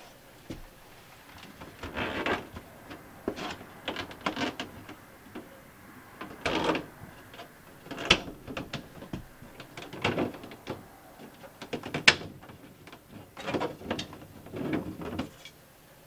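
MaxxAir MaxxFan 4500K roof vent's lid operator mechanism clicking and crunching in irregular bursts every second or two as the lid is worked, with the sharpest crack about twelve seconds in. The loud clicking is the sign of a failing lid operator mechanism that is falling apart.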